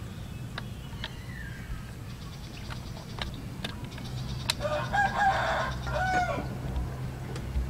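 A rooster crows once about five seconds in, a pitched call in two parts that falls away at the end.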